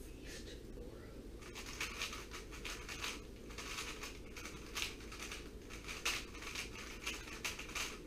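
Plastic 3x3 speedcube being turned fast, its layers clicking and rattling in quick irregular runs from about a second and a half in. This is the execution phase of a blindfolded solve, after memorisation.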